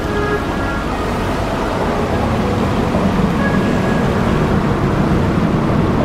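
Steady, loud outdoor rushing noise, heaviest in the low end: wind buffeting the microphone along with the rumble of freeway traffic on the bridge overhead.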